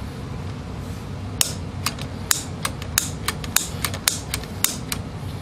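Light metal clicks and clinks from handling and fitting a gas water heater's burner assembly back into its combustion chamber. There are about a dozen irregular clicks, starting about a second and a half in, over a steady low hum.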